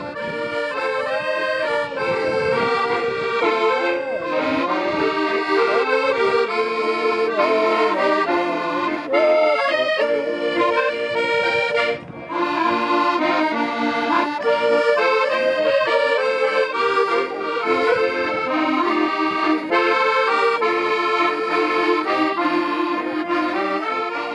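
Two accordions playing a traditional tune together in chords, with a brief break about halfway through.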